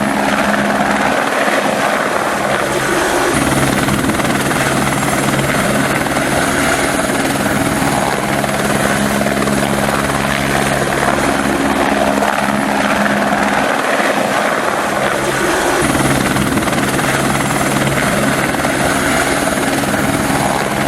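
Helicopter flying: continuous rotor and turbine noise at a steady level, with a low drone that briefly thins out twice.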